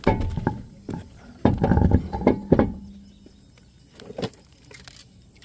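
Alloy road wheel being lifted onto the rear hub studs and seated against the hub, making a series of knocks and clunks. The loudest cluster comes between about one and a half and three seconds in, with one more knock near the end.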